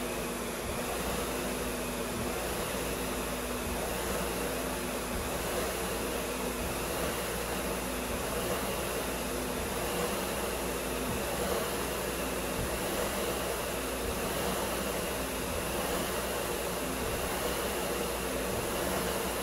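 Concept2 SkiErg's fan flywheel spinning with a steady rush of air, swelling slightly with each double-pole pull about every second and a half.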